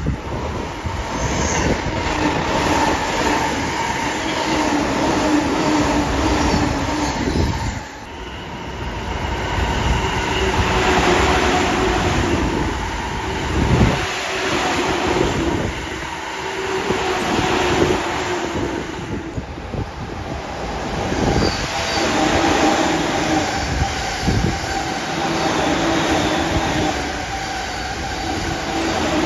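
Several JR East electric trains passing at speed one after another, among them an E231-series commuter train: a steady rumble of wheels on the rails with a humming motor tone. The sound dips briefly between passes.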